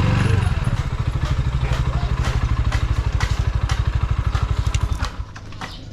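Rusi Classic motorcycle engine running with a steady, even low beat and scattered light clicks; the sound drops away sharply about five seconds in.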